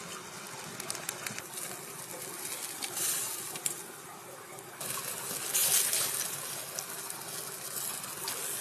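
Meat skewers sizzling over a charcoal and wood fire, with scattered crackling pops and louder surges of hissing about three and five and a half seconds in.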